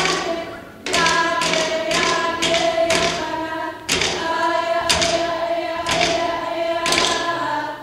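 A group of young voices singing a traditional Greenlandic song together on long held notes, over a sharp, steady beat about twice a second.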